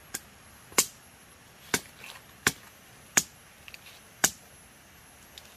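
Sharp chopping strikes, six in a row at an uneven pace of roughly one every two-thirds of a second to a second, the fourth and sixth the loudest.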